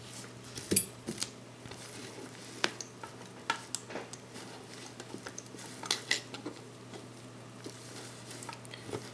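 Light, irregular metallic clicks and taps of small watchmaker's tools handling a Seiko 7T42 quartz chronograph movement, a few seconds apart, while the test battery is being fitted.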